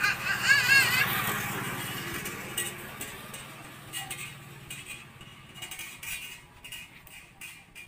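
A young girl's high, wavering call of about a second near the start, over a low steady hum that fades away over the next few seconds.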